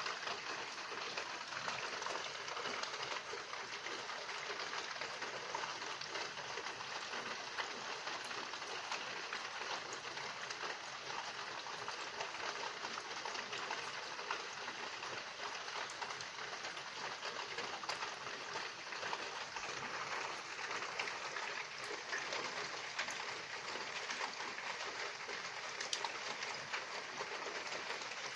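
Steady rain falling, an even hiss with scattered fine drop ticks.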